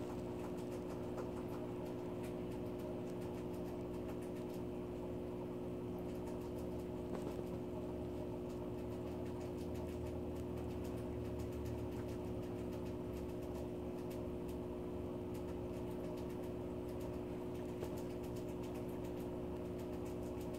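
A steady low hum made of several fixed tones that do not change in pitch or level, with faint scattered ticks and clicks over it.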